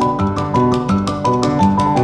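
Background music: a melody of quick, evenly spaced notes over a steady, repeating low part.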